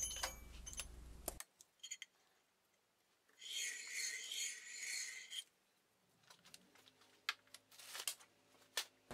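Hendey lathe's four-jaw chuck, holding an aluminum plate, being turned by hand: a rubbing, whirring sound for about two seconds in the middle, with scattered light clicks around it. The turning is to check the plate's face and centre for runout against a dial indicator.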